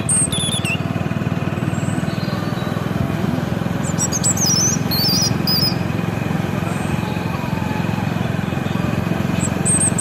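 Engine of a moving vehicle running steadily as it drives along, with a few high bird chirps around the middle.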